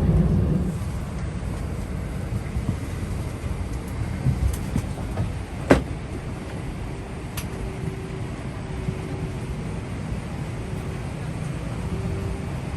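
Steady low rumble of a parked airliner's cabin, with a sharp click about six seconds in and a fainter one a second and a half later; a faint steady hum joins in the second half.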